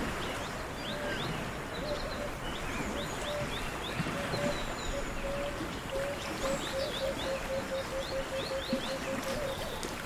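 Outdoor nature ambience: birds chirping in short quick notes over a steady background hiss. About four seconds in, a run of short, low, evenly repeated call notes, a few a second, starts and keeps going until near the end.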